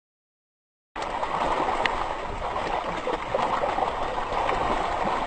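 Water churning and splashing at the surface, a steady wash of sound with small ticks. It comes in abruptly about a second in, after a short stretch of dead silence.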